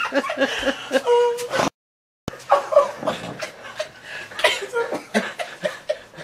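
Several people laughing, at first in quick rhythmic bursts of about five a second, then looser chuckling. The sound cuts out completely for about half a second around two seconds in.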